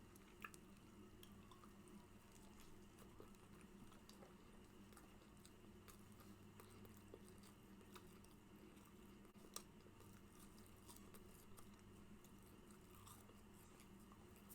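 Faint chewing and mouth clicks of someone eating, over a low steady hum.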